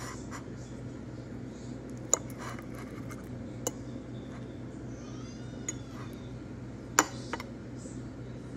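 A metal fork clinking against a ceramic plate about five times, with the loudest clink late on, over a steady low hum.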